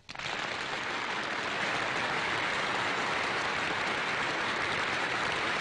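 A large concert-hall audience starts applauding suddenly and keeps up a steady, dense clapping.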